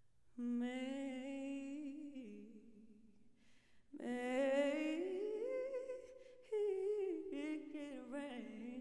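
Female vocalist singing a slow solo line of drawn-out, wavering notes, close to humming, with no accompaniment standing out. One phrase starts about half a second in and fades after two seconds; after a pause a second, louder phrase begins about four seconds in and runs on with sliding pitch.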